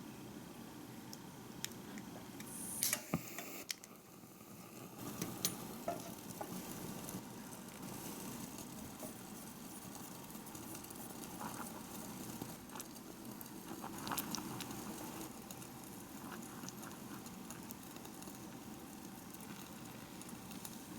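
Faint steady sizzling in a miniature pan, with scattered small clicks and taps of tiny utensils. The louder taps come about three, five and fourteen seconds in.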